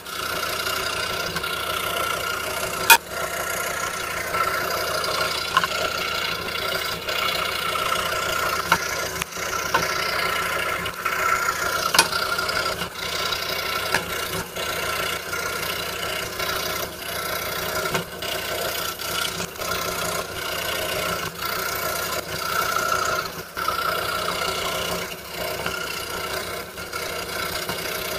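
A 26-inch RBI Hawk scroll saw running with a 5-0 skip-tooth blade, cutting through Baltic birch plywood: a steady mechanical hum with a sharp click about three seconds in and another about twelve seconds in.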